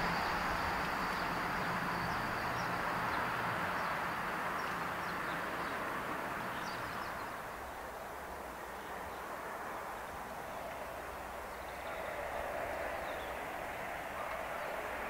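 Rail noise of express trains on a high-speed main line: one train's noise fades as it recedes over the first several seconds. After a lull, an approaching InterCity 225 set, driving van trailer 82227 leading with electric Class 91 91108 at the rear, grows louder near the end.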